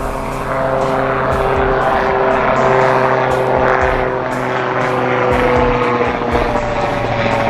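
Aircraft passing over, a steady engine drone whose pitch sinks slightly as it goes. Wind buffets the microphone.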